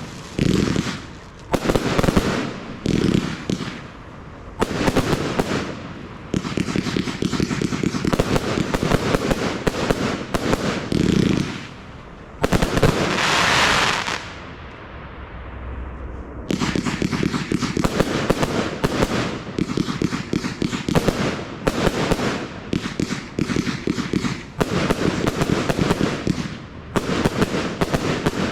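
Audacious compound firework cake firing: volleys of rapid, dense cracks and bangs with brief pauses between them, and a hissing rush about halfway through followed by a few quieter seconds before the cracking resumes.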